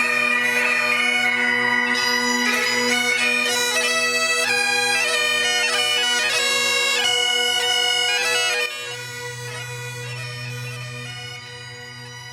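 Bagpipes playing a tune over their steady drones. About nine seconds in the melody stops and the pipes sound on more quietly as a steady held chord.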